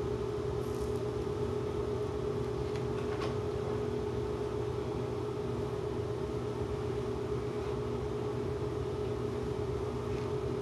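Steady mechanical hum with a constant mid-pitched tone over a low noise, and a couple of faint clicks about three seconds in.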